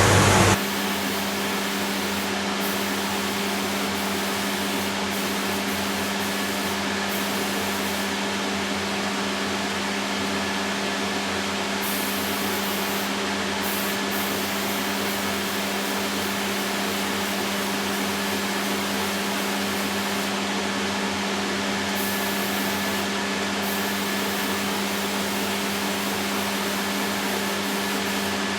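Paint-spraying equipment running steadily: an even motor hum under a constant hiss. A louder rushing sound with a deeper hum cuts off abruptly just after the start.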